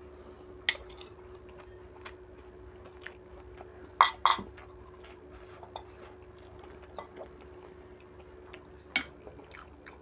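Metal spoon and fork clinking against a ceramic rice plate and soup bowl while eating: scattered sharp clinks, the loudest a quick pair about four seconds in and another near the end, over a faint steady hum.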